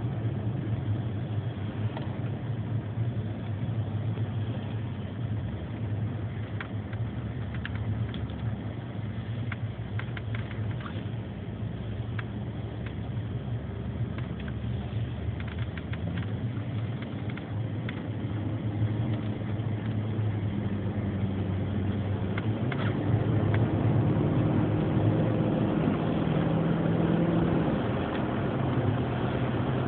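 Car interior sound while driving: a steady low engine hum with road and tyre noise, with a few light clicks in the middle. In the last third the engine note gets louder and stronger as the car gathers speed.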